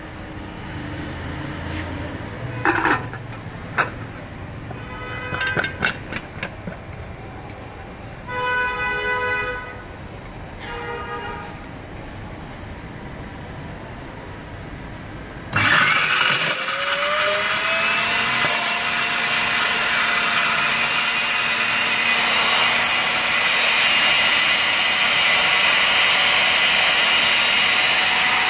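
Clicks and knocks as the lid and motor unit are fitted onto a stainless-steel bowl chopper loaded with paper scraps. About halfway through, the electric chopper motor switches on abruptly, its whine rising and then settling, and runs steadily while the blades grind the paper.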